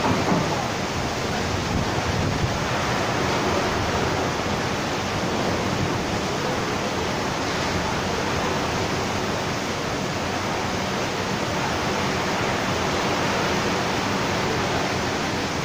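Heavy downpour in a squall: a steady, even rush of rain pouring down, with no let-up.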